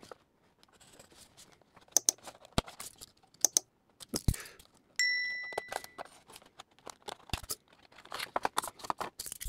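Plastic blister pack on a cardboard toy card being cut and peeled open by hand: crackling, tearing plastic with scattered sharp clicks. A brief ringing clink about halfway through.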